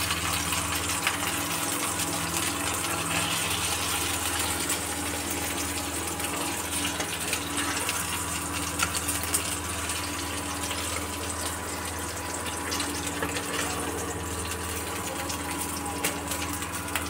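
Okra frying in hot oil in a steel kadhai: a steady sizzle with fine crackling, over a steady low hum from the induction cooktop running at 1200 W.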